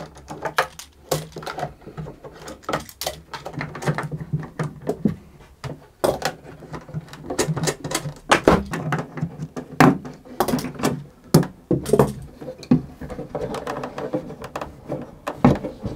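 Luthier's clamps being loosened and taken off a cello: spool clamps around the edge of the top and screw clamps across the ribs. The sound is an irregular run of sharp clicks and knocks of metal clamp parts against each other and against the wooden body.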